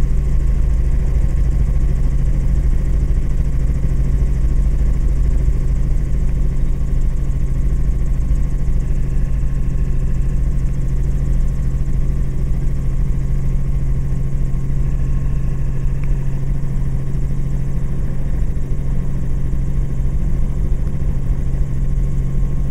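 Steady drone of a Robinson R44 helicopter in flight, its rotor and six-cylinder Lycoming piston engine heard from inside the cabin as a strong, even low hum over a deep rumble.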